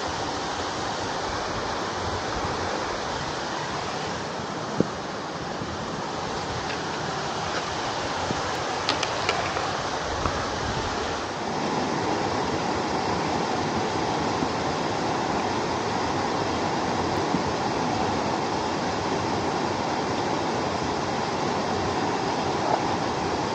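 Steady rush of a mountain stream cascading over rocks, a little louder about halfway through, with a few faint knocks from hands and a trekking pole on rock.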